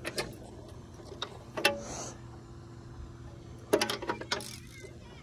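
Socket-wrench ratchet clicking and clinking on a bolt: a few separate metallic clicks, then a quick run of clicks a little under four seconds in.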